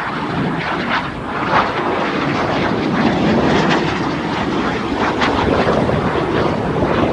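Aerobatic display jets flying over, a loud, steady jet engine noise that swells a little over the first couple of seconds.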